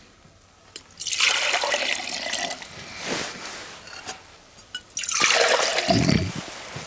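Water poured from a glass jug into a glass measuring jug, splashing and filling it in two main spells, about a second in and again about five seconds in.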